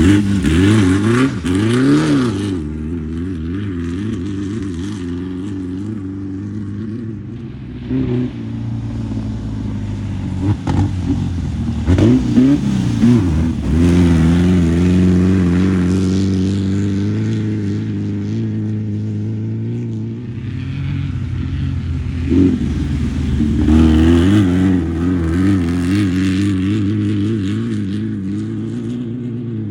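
Air-cooled Volkswagen-engined desert race cars running and revving, the engine pitch climbing and dropping sharply several times as they accelerate, with steadier running in between.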